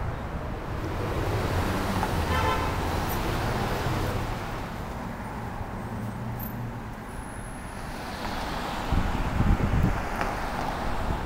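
City street traffic: cars running past, with a short car-horn toot about two and a half seconds in. Wind buffets the microphone near the end.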